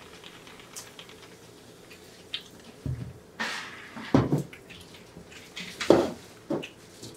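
Close-miked eating sounds: bibim-myeon noodles slurped and chewed, with a few short, sharp mouth smacks in the second half.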